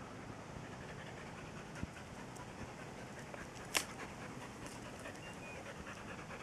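A dog panting steadily, with a sharp click a little under four seconds in.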